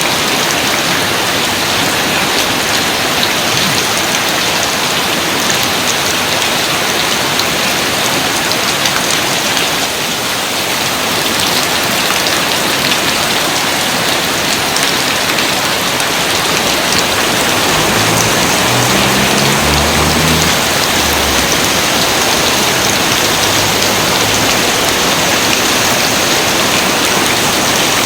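Steady, dense rain: a continuous hiss of many falling drops striking a surface.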